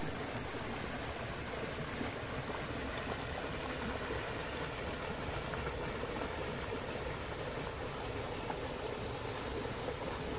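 Shallow, fast stream rushing over a low rock ledge: a steady, even rush of water.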